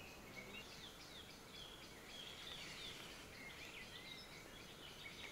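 Faint chirping of small birds, many short high calls that rise and fall, over a quiet background hiss.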